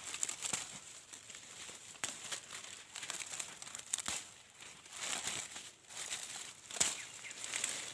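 Dry corn husks and leaves crinkling and crackling during corn harvesting, with irregular sharp snaps every second or two.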